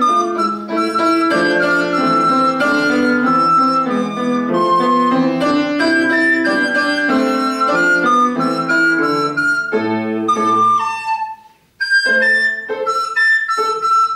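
A recorder plays a melody over grand piano accompaniment. Both stop for a brief pause about three seconds before the end, then start again.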